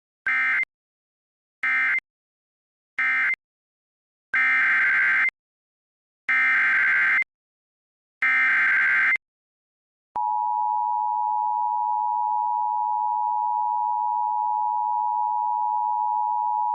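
Emergency Alert System data bursts. First come three short end-of-message bursts closing one warning, then three longer SAME header bursts opening the next. A steady attention tone follows, starting about ten seconds in.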